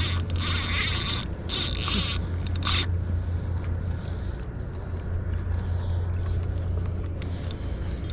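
Spinning reel's drag buzzing in three short runs during the first three seconds as a hooked fish pulls line, then steady low wind rumble on the microphone.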